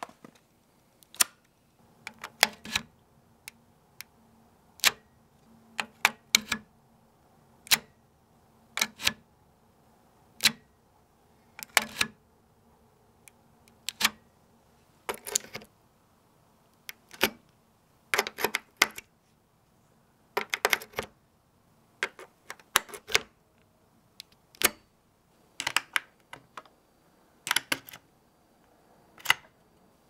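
USB flash drive being handled, giving sharp plastic clicks and snaps, singly or in quick pairs, every second or two.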